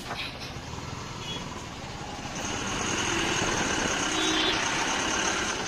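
Engines running in stop-and-go traffic, heard close beside a truck. About two seconds in, a steady high hiss comes up and the whole noise grows louder, staying up to near the end.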